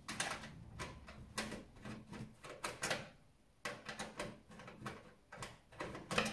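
Irregular clicks and light knocks of PC hardware being handled as a back plate is taken off. They come in two quick runs with a short pause about halfway.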